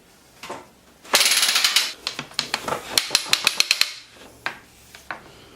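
Ratchet and pawl of an adjustable light stand clicking as the stand is raised: a fast run of clicks about a second in, then a steady train of clicks for about two seconds, then a few scattered clicks.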